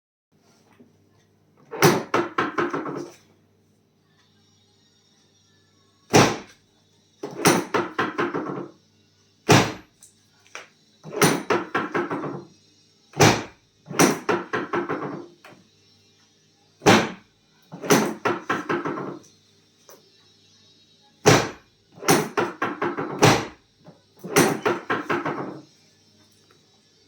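Rapid percussive tapping on a person's body during a chiropractic treatment. It comes in repeated bursts about a second long, each opening with a sharp knock and a quick run of strikes that fade out, recurring every three to four seconds.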